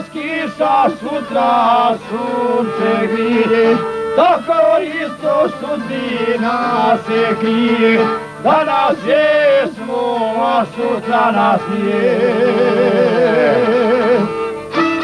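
Bosnian folk song: a man's voice singing a wavering melody with vibrato over stringed-instrument accompaniment.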